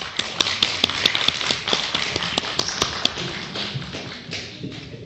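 Rapid knocking: a quick run of sharp taps, about four to five a second, over a hiss, thinning out after about three seconds.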